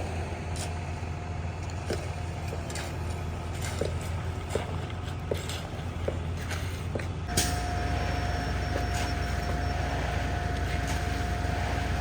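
An engine running steadily with a thin whine over its low drone and scattered clicks and knocks; a little over seven seconds in there is a sharp clack and the engine note steps up louder and stays there.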